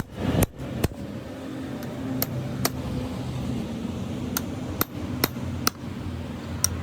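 A series of sharp taps or knocks, about nine spread unevenly over several seconds, some in quick pairs, over a faint steady low hum.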